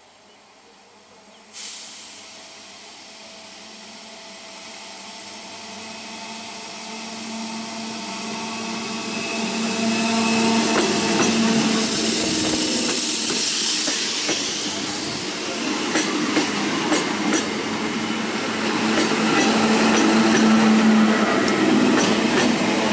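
Old Indian Railways electric multiple unit (EMU) local train approaching slowly and passing close by. A hiss sets in suddenly about a second and a half in, then a rumble with a low steady hum grows louder. In the last third the wheels click over the rail joints as the coaches go past.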